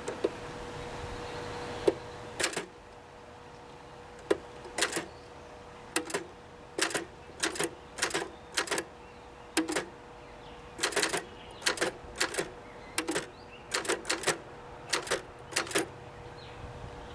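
1958 Adler Universal manual typewriter being typed on slowly, with separate sharp key strikes at uneven spacing, some coming in quick runs of two or three.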